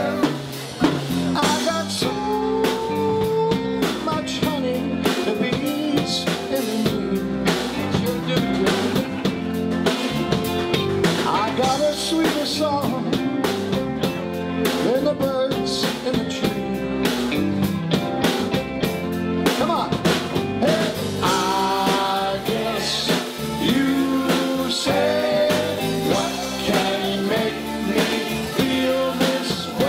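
Live rock and roll band playing drum kit, electric guitar and electric bass, with several men singing into microphones.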